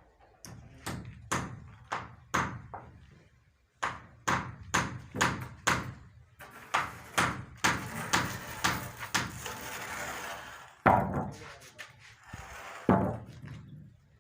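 A series of sharp knocks, in runs of quick strikes about two to three a second, with a stretch of rasping noise in the middle and two louder single knocks near the end.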